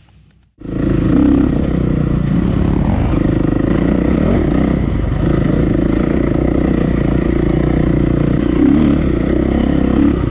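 KTM EXC enduro dirt bike's single-cylinder four-stroke engine running steadily under way on a dirt trail, heard from the rider's helmet camera. It starts abruptly about half a second in after near quiet.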